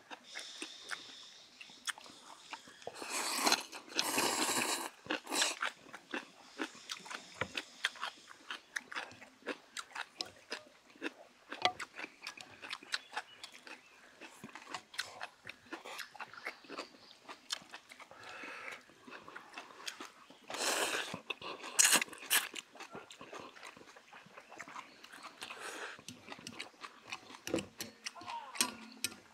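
Two men eating banquet noodles with chopsticks from metal bowls: loud slurps of noodles about three seconds in and again around twenty seconds, with chewing and chopsticks clicking against the bowls in between.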